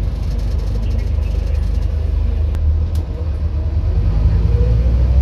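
Scania N230UD double-decker bus heard from inside on the upper deck: a steady low drone from its diesel engine and drivetrain as it drives along, with a couple of brief rattles in the middle. Near the end the drone grows louder and a whine rises in pitch as the bus pulls harder.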